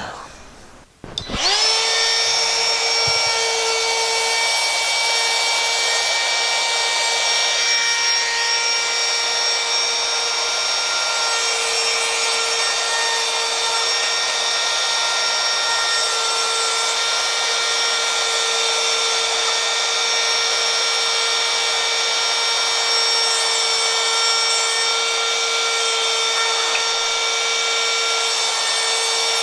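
Router switching on about a second in and running at a steady high speed, a constant high whine, as it plows a channel through Kaizen foam.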